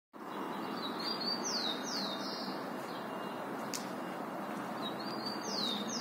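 A bird calling: two groups of short, high whistled notes, each sliding downward, about four seconds apart, over a steady background of outdoor noise. A single faint click comes between them.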